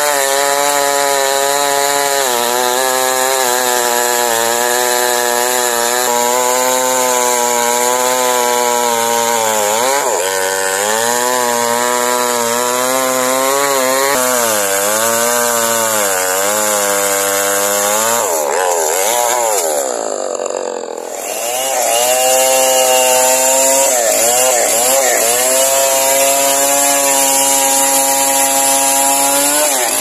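Stihl two-stroke chainsaw running at high throttle while cutting through a large log. The engine note sags and recovers several times as the chain bites, with a brief drop about two-thirds of the way through before it runs steady again.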